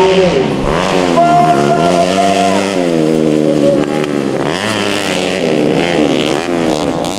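Motorcycle engines on a grasstrack dirt circuit, revving, their pitch rising and falling several times as the bikes accelerate and back off.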